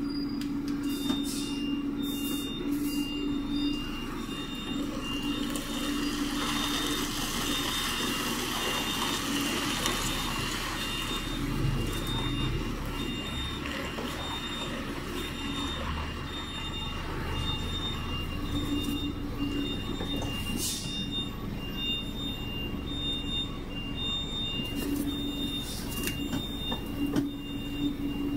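A truck's reversing alarm sounds a steady run of short, evenly spaced high beeps, about one and a half a second, over the low running of its diesel engine, as it backs up to a loading dock.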